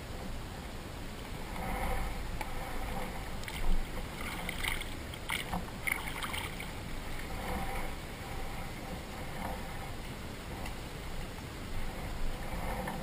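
Water splashing and lapping against a small river boat in uneven surges every couple of seconds, with a sharper splash or knock about four seconds in.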